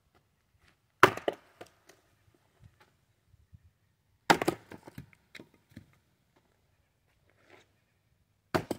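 Fiskars X27 splitting axe striking a red oak log three times, about three and a half seconds apart, each a sharp whack followed by a few smaller cracks of the wood.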